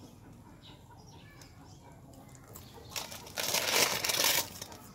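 A puppy eating from a metal bowl. It is fairly quiet at first, then about three seconds in comes a click and a loud, noisy burst of eating sound lasting about a second.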